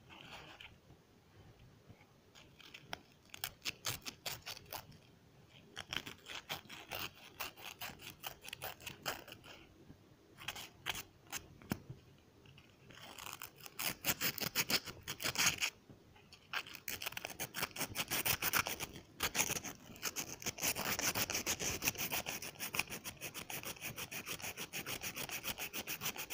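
Rapid back-and-forth scrubbing strokes on a skeleton key being restored. They come in bursts of a few seconds with short pauses, and grow louder and more continuous about halfway through.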